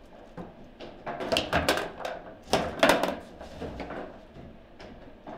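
Table football in play: sharp clacks and knocks of the ball against the plastic players and the table, with the rods being jerked and turned. They come in two quick, loud flurries in the first three seconds, then scattered single knocks.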